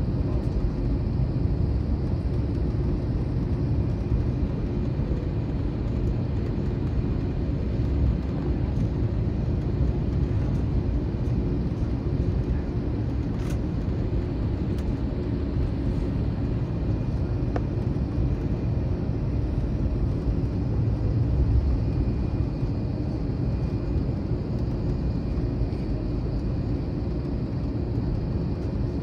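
Cabin noise inside an Airbus A321 taxiing after landing: a steady low rumble from the engines and the rolling airframe, with a faint steady whine above it.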